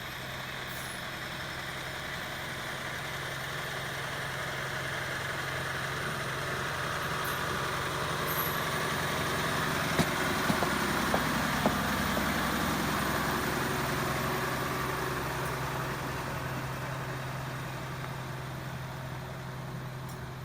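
A vehicle engine running steadily, growing louder to its loudest about halfway through and then fading again, with a few sharp clicks near the middle.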